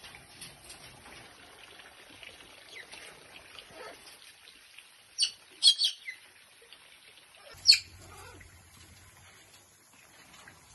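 Parrots in an aviary calling: faint scattered chirps, with a cluster of three loud squawks about five to six seconds in and one more near eight seconds.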